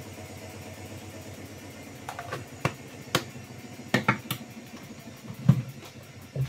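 Kitchen things being handled: a plastic milk container and its lid set down on a stone counter, then a plastic mixing bowl gripped and an electric hand mixer picked up, giving a series of light clicks and knocks from about two seconds in, with a duller thump at about five and a half seconds. A steady low hum sits underneath.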